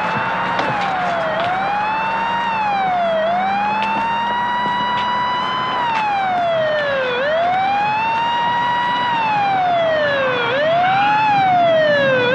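Police car siren wailing, its pitch rising and falling in slow sweeps every two to three seconds.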